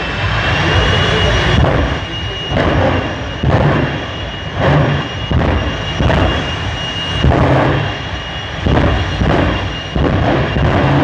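Drag racing vehicle's engine running at the start line: a steady high whine with a louder rush that surges and falls back about once a second.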